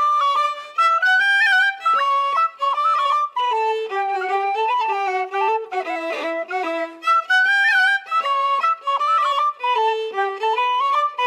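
Background music: a fiddle playing a tune of quick, stepping notes.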